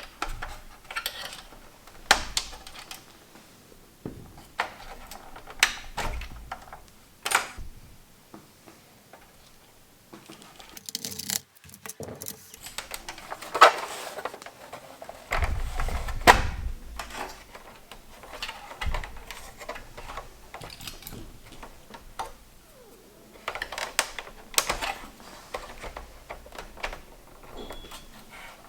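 Irregular clicks, taps and knocks of hard plastic and small metal parts being handled as a PS3 Slim console is worked on, with a denser patch of clatter about halfway through.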